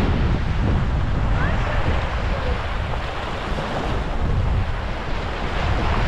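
Small waves breaking and washing up over a sandy shore in shallow surf, with wind buffeting the microphone as a steady low rumble.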